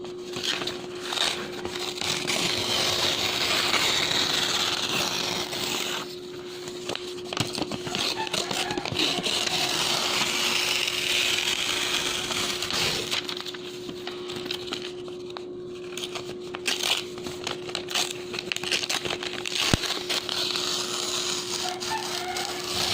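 Bond paper being torn by hand: two long ripping tears, the first from about two seconds in to six and the second from about eight to thirteen, followed by shorter tears and crackles. A steady low hum runs underneath.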